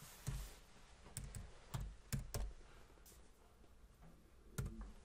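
Computer keyboard keys tapped one at a time as a word is typed: about six faint keystrokes, slow and unevenly spaced.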